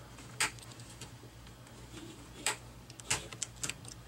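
Plastic snap clips of an HP Pavilion 15-n touchscreen digitizer frame clicking loose as the seam is pried open, about five sharp, irregularly spaced snaps.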